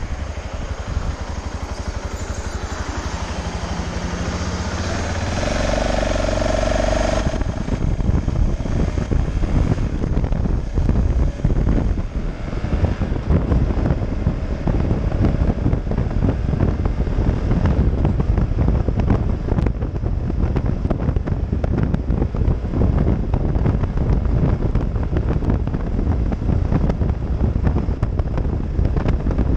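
BMW G650GS single-cylinder motorcycle engine pulling away from a stop and accelerating. From about seven seconds in, heavy wind buffeting on the microphone takes over as the bike reaches road speed.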